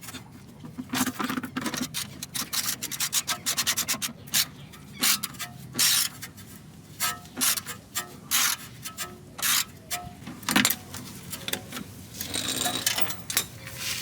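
Irregular clicks, taps and scraping, with a fast run of clicks about one to four seconds in: hand tools and parts being handled during the shock install.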